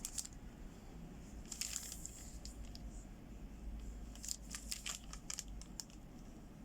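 Packaging being handled while unboxing: a short crinkle of wrapping, then a run of light clicks and taps, all faint.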